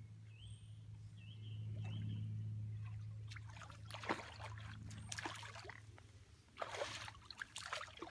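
Hooked tench splashing and thrashing at the surface as it is drawn into the landing net, in separate splashes about four seconds in and again several times over the last three seconds.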